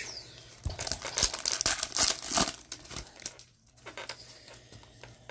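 A foil hockey card pack wrapper being torn open and crinkled by hand, with dense crackling for the first few seconds, then quieter rustling.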